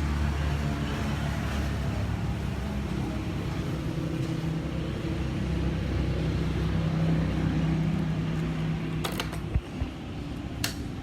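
Yamaha Sniper 150 single-cylinder four-stroke engine running steadily through an aftermarket King titanium drag pipe exhaust. The note dips and gets quieter about nine and a half seconds in, with two sharp clicks near the end.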